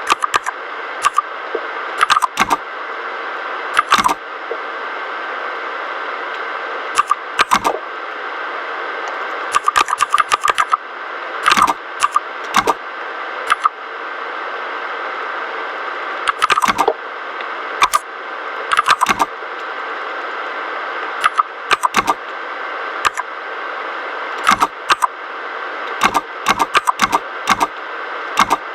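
Keys of a mechanical keyboard with red linear switches being pressed, sharp clicks coming singly and in quick bursts of a few keystrokes with pauses between, over a steady background hiss.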